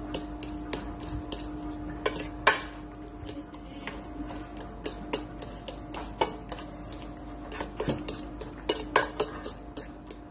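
Metal fork clinking and scraping against a stainless-steel bowl while mashing and stirring soft boiled squash, in irregular taps, over a steady low hum.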